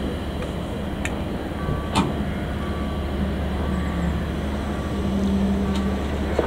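Diesel shunting locomotive's engine running steadily as it eases a freight wagon along slowly, with a few sharp knocks. A short electronic beep repeats about once a second, typical of a level crossing warning.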